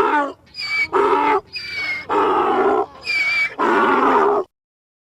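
Donkey braying: a run of about four hee-haws, each high, thin 'hee' on the in-breath followed by a lower 'haw' on the out-breath. The bray cuts off about four and a half seconds in.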